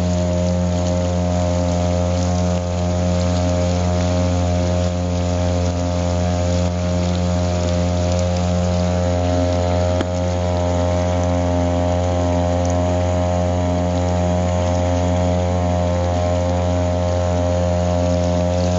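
Boat motor running at a steady speed, a constant low hum with many even overtones that does not change pitch.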